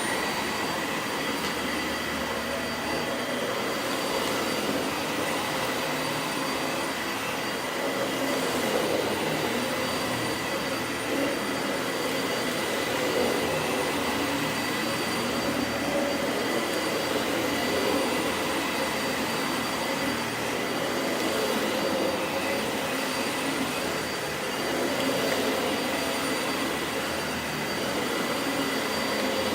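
Dyson Light Ball Animal upright vacuum cleaner running steadily while vacuuming a rug, a constant motor noise with a steady high-pitched whine, swelling a little now and then.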